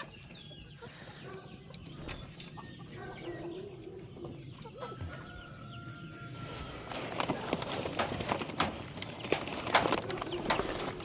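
Chickens clucking and calling softly, with scattered clicks and rustling that grow louder about halfway through.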